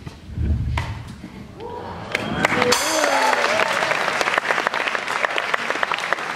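A theatre audience applauding and cheering, the clapping breaking out about two seconds in and carrying on, with a few voices whooping over it near the start of the applause. A couple of low thuds come in the first second.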